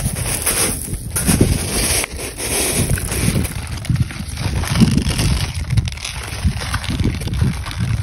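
Wind buffeting the microphone in irregular low rumbles, with a steady hiss over it.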